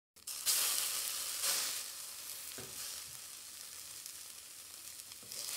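Beef burger patties sizzling on a grill over flaring flames: a steady hiss with a couple of short crackling pops.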